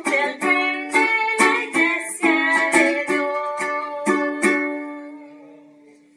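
Ukulele strummed in a lively rhythm, about ten chord strokes in the first four and a half seconds. The last chord is then left to ring and fade.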